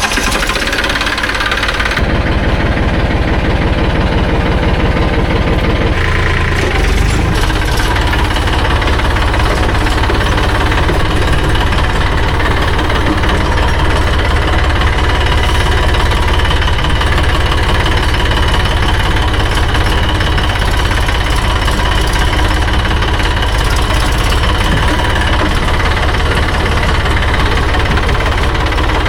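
Tractor's diesel engine running close by with a steady knocking clatter; its note shifts about two seconds in and again around seven seconds, then holds steady.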